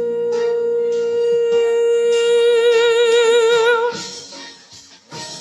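Song with a female singer holding one long note on the word 'you', steady at first and then with a widening vibrato, which breaks off about four seconds in, leaving a soft instrumental backing.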